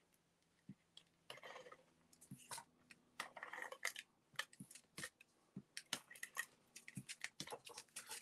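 Faint handling of paper and cardstock on a desk: soft rustles as panels are slid and pressed flat, with scattered small clicks. Near the end, a quick run of ticks as a tape runner is rolled over the paper.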